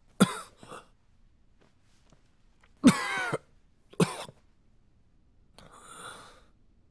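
A drunk man coughing on the water he has just been given: several short coughs, then a long breathy exhale near the end.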